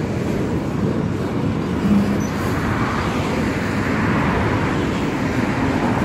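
Freight train of autorack cars rolling past, a steady rumble of steel wheels on the rails.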